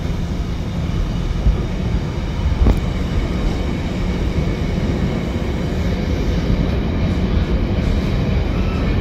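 Loaded intermodal container wagons of a freight train rolling past: a steady rumble of steel wheels on rail, with one sharp clank about three seconds in.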